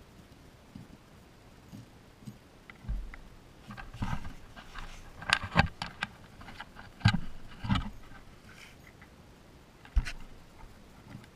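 Baby striped skunks nosing and brushing against a ground-level camera. Scattered knocks and scrapes of fur and snout on the housing come in a cluster through the middle, with one sharp knock near the end.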